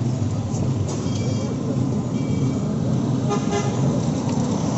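Road traffic running steadily, with a few short vehicle horn toots, about a second and two seconds in and again past three seconds.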